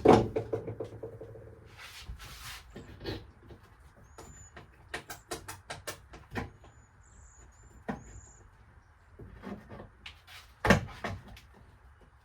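Knocks, taps and clicks of wall paneling and trim being worked loose inside a camper, with a loud knock that rings briefly at the start and another loud knock near the end. Faint bird chirps a few times in between.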